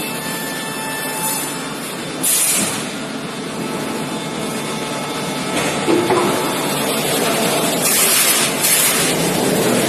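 CNC machine running with a steady mechanical noise, with short bursts of hiss about two seconds in and twice more near the end.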